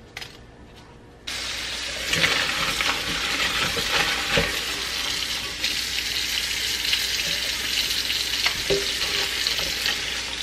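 Kitchen tap running into a stainless steel sink, the water splashing over dried chile pods in a plastic colander as they are rinsed by hand. The water noise starts abruptly about a second in and then stays steady.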